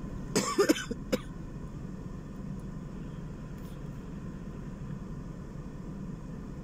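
A woman coughs and clears her throat in a few short bursts in the first second or so, during an asthma flare. A steady low hum of the car cabin follows.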